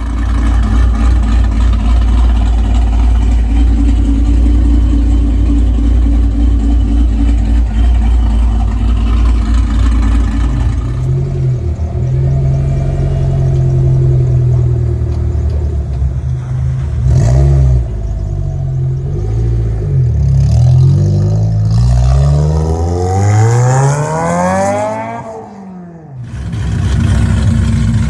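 Loud exhaust of a modified V8 sedan: the engine runs steadily for about ten seconds, then is revved up and down several times. Near the end it makes one long climbing rev that drops away sharply, then settles back to a steady note.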